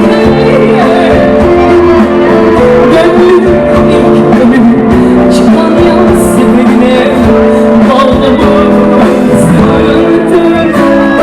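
Live concert music: a band playing with a woman singing over it, loud and continuous through a hall sound system.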